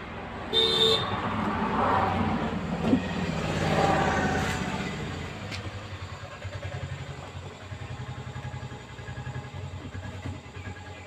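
Passing road traffic: a short vehicle horn toot about half a second in, then a vehicle engine that swells and fades. An engine runs with an even low pulsing beat after that.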